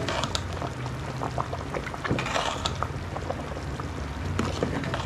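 Crab curry bubbling at a rolling boil in an aluminium pot, with many small pops, while a steel ladle stirs it and lifts and pours the thick curry, making a louder splashing stretch about two seconds in. A steady low hum runs underneath.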